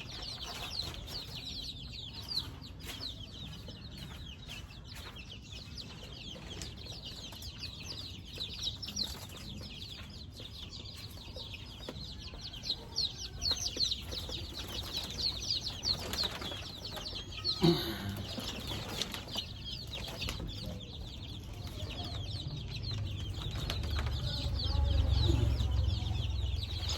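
A brood of young chicks peeping continuously, a dense chorus of short high cheeps. A single sharp knock about two-thirds of the way through, and a low rumble near the end.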